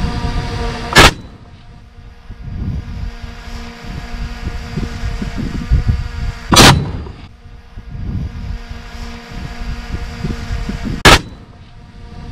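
Three loud, sharp bangs about five seconds apart, over a steady hum.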